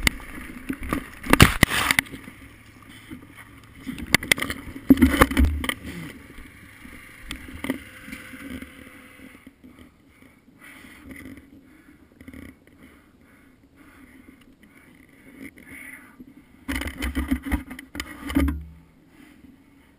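Wind buffeting and handling rumble on a helmet-mounted camera's microphone. Three loud bouts of knocks and scuffs stand out: about a second in, around five seconds, and near the end, with a faint steady hum between them.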